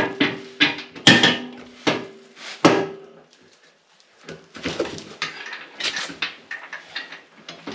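Steel snowplow frame clanking as it is lifted and set down onto its mount: three sharp metal knocks in the first three seconds, each leaving a short ringing tone, then softer knocks and shuffling.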